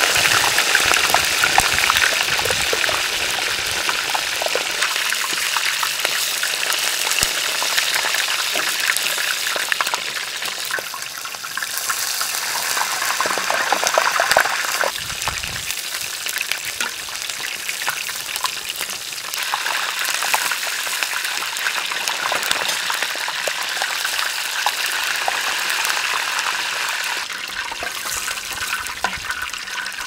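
Whole ostrich leg deep-frying in a large pan of hot oil: steady, loud sizzling and crackling as hot oil is ladled over the meat.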